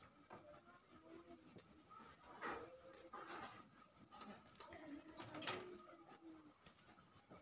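A cricket chirping steadily in the background, a fast, even train of high-pitched pulses. A few faint handling sounds of cloth on the cutting table come and go.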